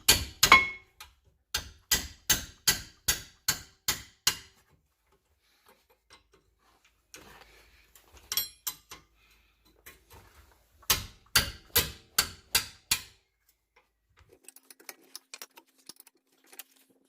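Ratchet wrench clicking in quick, even strokes, about three a second, while turning out the 15 mm bolts that hold a rear brake caliper bracket to the knuckle. Two runs of clicking with a pause between, and faint clatter of metal parts.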